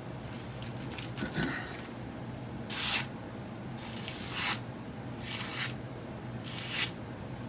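A freshly sharpened Buck Vantage knife slicing through paper: four short swishing cuts about a second apart, each building up and ending sharply. The edge is cutting cleanly and easily.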